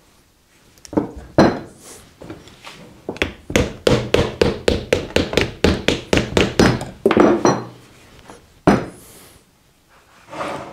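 Soft-faced mallet striking a repulsion-induction motor to drive the rotor out of its housing: a few single blows, then a quick, even run of about five taps a second for several seconds, and one last blow.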